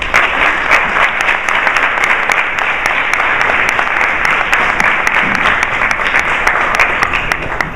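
A roomful of people applauding, with dense, rapid clapping that breaks out all at once.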